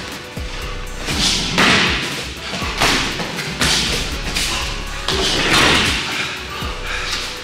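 Punches and kicks landing during MMA sparring: a series of sudden thuds and slaps, about six or seven over a few seconds, some in quick pairs, over background music.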